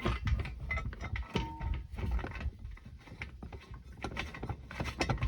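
Irregular metallic clicks and clanks of roof-rack rails and their bolts being handled and slotted onto the crossbars.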